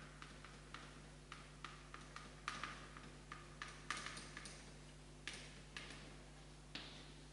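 Chalk writing on a blackboard: quick irregular taps and short scratching strokes as letters are formed, strongest about two and a half and four seconds in. A faint steady low hum lies underneath.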